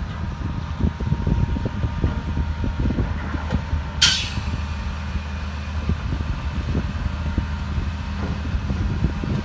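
Heavy diesel construction machinery running steadily with a low, rough drone, and a short, loud hiss of air about four seconds in.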